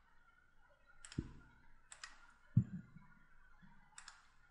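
Computer mouse clicking a few separate times, with two soft low thumps about a second and two and a half seconds in.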